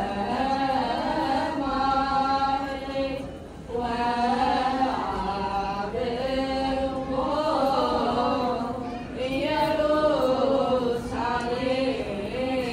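Ethiopian Orthodox wereb: a youth choir chanting in unison in long, melismatic phrases, with short breaks between phrases about three and a half and nine seconds in.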